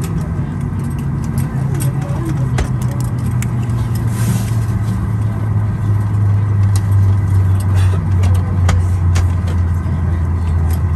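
Airliner engine noise heard inside the cabin: a steady low hum whose pitch steps down over several seconds, with scattered small clicks and knocks.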